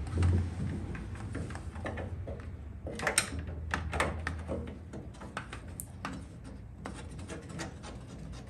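Scattered light clicks and knocks as a power brake booster with its master cylinder is shifted and wiggled against the car's firewall to line up its mounting studs, with a few sharper knocks about three to four seconds in. A low steady hum lies underneath.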